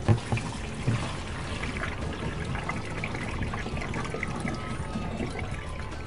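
Water draining out of a CAMEL washing machine's drain and outlet pipe in a steady trickle, with a couple of knocks in the first second. It flows freely because the clogged drain has just been cleared.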